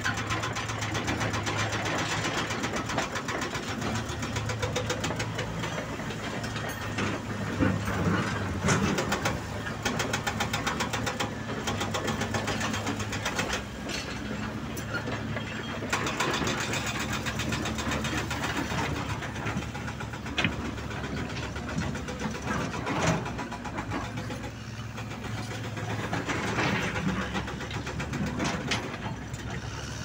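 Heavy diesel earthmoving machines (excavators and a crawler bulldozer) running, over the rapid, steady hammering of a hydraulic rock breaker on an excavator, with a few louder knocks standing out.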